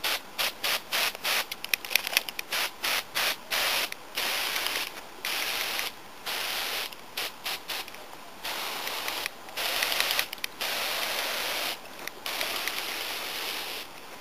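Hand sprayer misting liquid onto tomato foliage. First comes a quick run of short hissing squirts, then longer sprays of about a second each with short pauses between.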